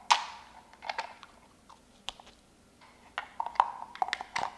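Light clicks and rattles of small plastic parts being handled: a mini self-watering pot's insert and its water-level gauge being worked apart and fitted. The sharpest click comes right at the start, another about a second in, then a run of clicks near the end.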